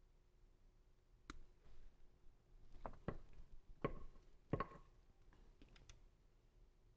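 Faint, sharp clicks of a wire stripper being squeezed on speaker wire to strip back the insulation, a handful of separate clicks, two with a short metallic ring.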